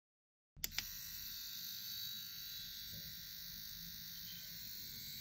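Small cordless rotary tool (mini electric drill) switching on with a couple of clicks about half a second in, then running steadily with a high-pitched whine as its thin bit drills into the end of a small wooden dowel.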